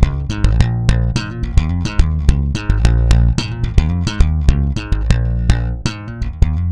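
Electric bass played slap style at full tempo: a funky groove of thumb slaps and popped strings, with sharp percussive attacks over deep sustained notes.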